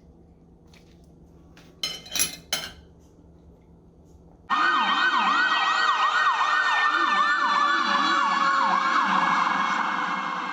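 Emergency vehicle sirens yelping in fast, repeated up-and-down sweeps, several layered together, starting abruptly about four and a half seconds in and beginning to fade near the end. Before them, three sharp knocks about two seconds in.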